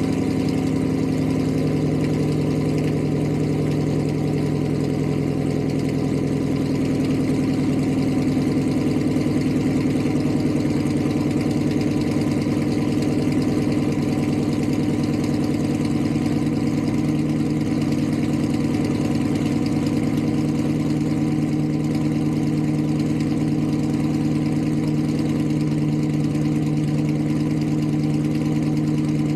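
Chrysler 300C's 6.4-litre HEMI V8, with long-tube headers and a Corsa exhaust, idling steadily at the tailpipes with a deep tone.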